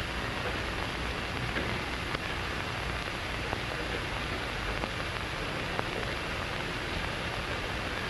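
Steady hiss of an old, worn soundtrack recording, with a few faint clicks scattered through it.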